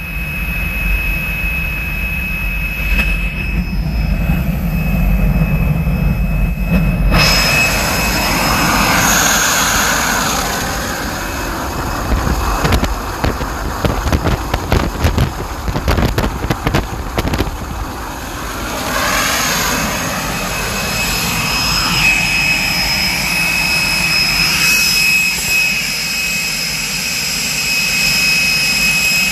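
Motorlet M701 centrifugal-flow turbojet running steadily, a high compressor whine over the jet roar. Around the middle it turns rough and gusty for several seconds as the exhaust blast buffets the microphone behind the jet pipe.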